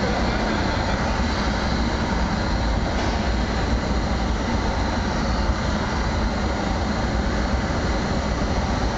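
Hand-held gas torch burning steadily as it heats a piece of glass: a constant rushing noise, heavy in the lows, with no breaks.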